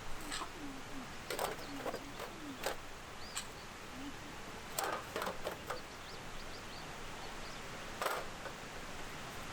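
Irregular sharp clicks and knocks, about a dozen, with the loudest strike about eight seconds in.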